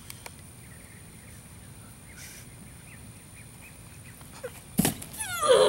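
Faint outdoor background, then about five seconds in a sharp thud as a person lands from a jump with a penny board, followed straight away by a loud yell.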